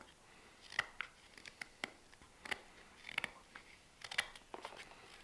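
Carving knife slicing green wood on a spoon blank: a series of short, crisp cuts at an irregular pace as shavings come away.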